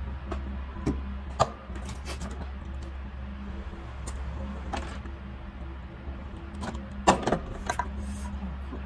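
Scattered sharp clicks and metallic clinks of hand tools being handled: a wire stripper snapping on a wire and tools set down, the loudest about a second and a half in and again around seven seconds in. A steady low hum runs underneath.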